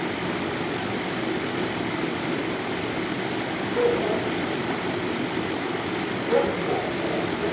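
Steady rushing background noise, with two brief faint sounds about four and six and a half seconds in.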